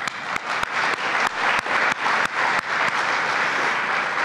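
Audience applauding, with many sharp individual claps standing out over a dense patter of clapping.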